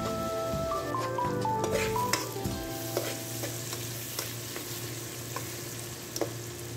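Onions and tomatoes sizzling as they sauté in oil in a pot, stirred with a metal spoon that now and then scrapes and taps against the pot.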